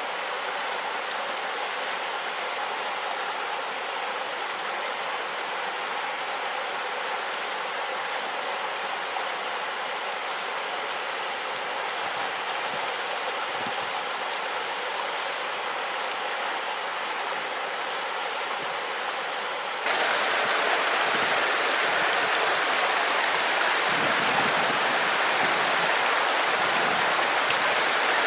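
Fossil Creek's water running in a steady rush; about two-thirds of the way through it changes abruptly to a louder, brighter rush of water.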